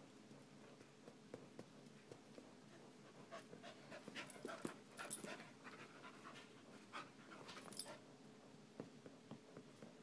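A puppy and a chihuahua play-wrestling on carpet, heard faintly, with a run of short clicks and scuffles between about three and eight seconds in.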